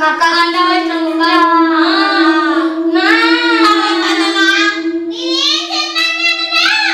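Eerie background music: a high wordless voice wailing and sliding up and down in pitch over one steady held drone note.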